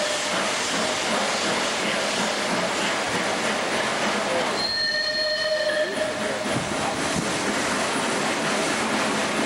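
Train running with a steady rushing noise of its coaches on the rails, and a high, steady wheel squeal lasting about a second, about five seconds in.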